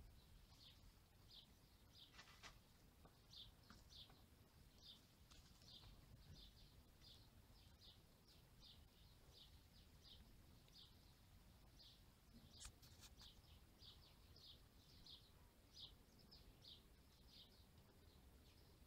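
Near silence: faint, short high-pitched chirps repeating about twice a second over a low rumble, with one soft click about two-thirds of the way through.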